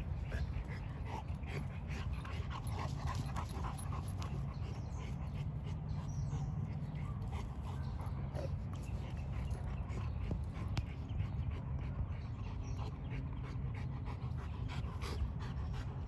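Boerboel dogs panting, with scattered short clicks and rustles over a steady low rumble.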